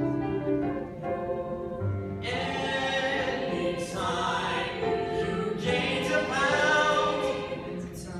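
A choir singing in sustained chords, the voices swelling fuller and louder about two seconds in.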